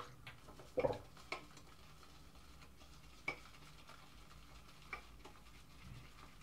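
Boar-bristle shaving brush building lather in a soap bowl: faint, with a few scattered light clicks and taps of the brush against the bowl.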